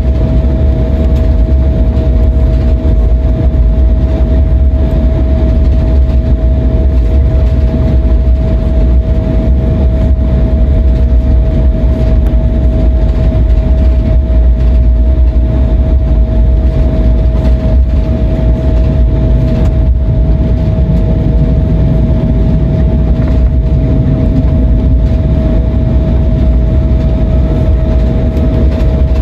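Cabin noise of an Embraer E175LR taxiing: its General Electric CF34 turbofans running at idle with two steady tones over a loud, low rumble of the airframe and wheels rolling on the taxiway.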